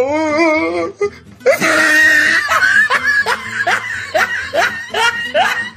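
A comic laughter sound effect over music: first a wavering, warbling tone, then a quick run of short rising squeaky notes.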